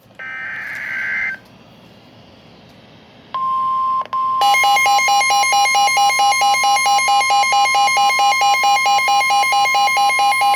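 Emergency Alert System tones: a roughly one-second burst of screeching header data, then a steady tone near 1 kHz that starts about three seconds in and breaks off briefly. It resumes joined by a harsh, buzzy beeping alarm pulsing about four times a second.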